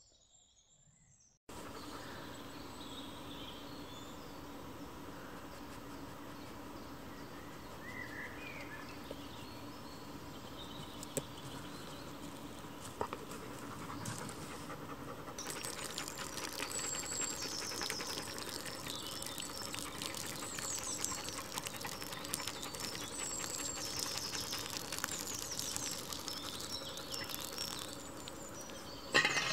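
Quiet woodland ambience with birds chirping. It gets louder and busier from about halfway, with more frequent chirps and many small ticks and rustles.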